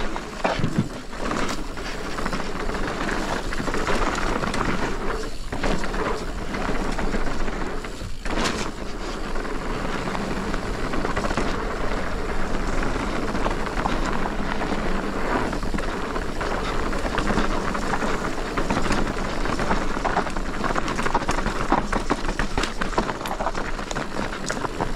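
Commencal Meta TR mountain bike descending a dirt trail, heard close up from a GoPro: a steady rush of tyres on dirt, broken by frequent clicks and knocks from the chain and frame over rough ground.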